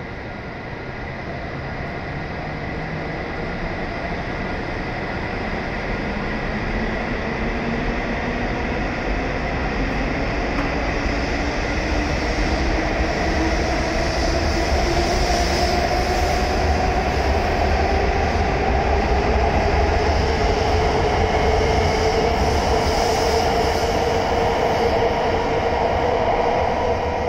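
E7 series Shinkansen train pulling out of the station and accelerating. Several tones of its motor whine climb slowly in pitch over a low running rumble, growing louder as it gathers speed.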